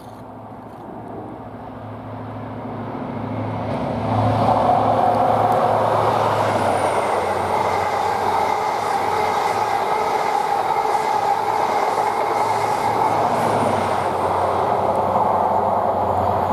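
A train approaching, its engine tone growing louder over the first four seconds, then passing close by with a steady loud rumble of wheels on the rails.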